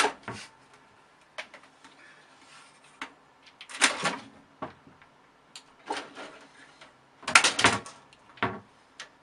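A kitten's claws scrabbling and its paws knocking against a computer tower case as it jumps up at it, in several short scraping bursts with sharp clicks between.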